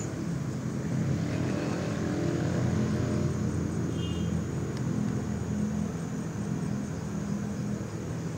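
A small motor running with a steady low drone, and a brief high chirp about four seconds in.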